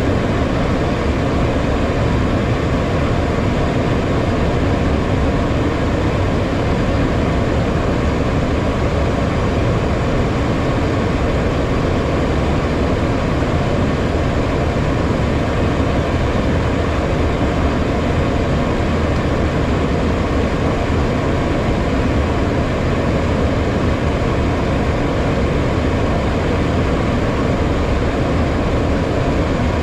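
Steady rush of airflow and engine noise inside the cockpit of a HondaJet on final approach, even and unchanging.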